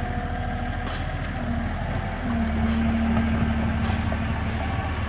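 IHI IS-30GX mini excavator's diesel engine running under load while the boom, arm and swing are worked, a steady drone that grows a little louder about two seconds in.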